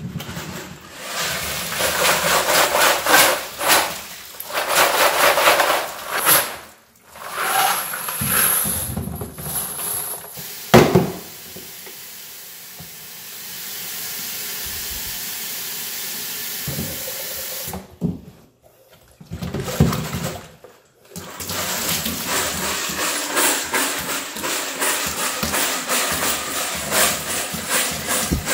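Rinse water and brass cases sloshing inside a rotary tumbler drum as it is shaken in three bursts, then a knock. Next a tap runs into the drum, and near the end the dirty rinse water is poured out through the strainer lid into the sink.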